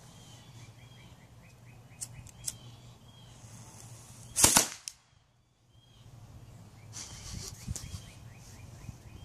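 Miniature black-powder cannon ring firing a single sharp shot about four and a half seconds in, after a faint hiss from its burning fuse.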